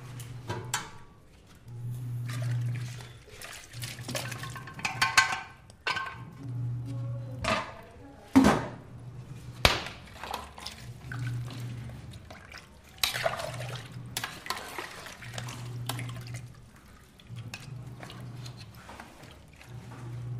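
Kitchen food-preparation sounds: scattered knocks and clinks of dishes and utensils, with water running or pouring. A low hum comes and goes underneath.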